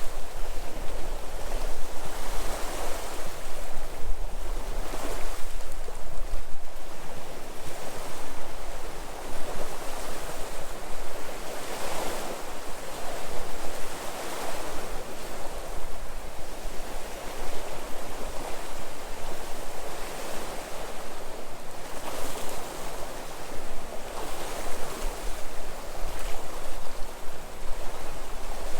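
Sea waves washing ashore on a rocky headland coast, a steady rush of surf that swells and falls back every few seconds, with a low rumble of wind on the microphone.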